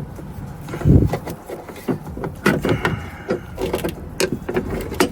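A replacement door check strap being twisted and fed into a Volvo C70's door cavity: a run of irregular clicks and knocks, with a heavier thump about a second in.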